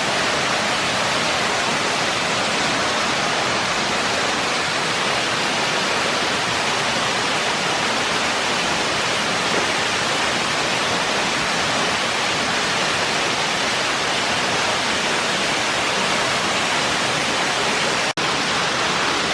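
A big waterfall pouring into its plunge pool: a loud, steady rush of falling water, with a momentary dropout near the end.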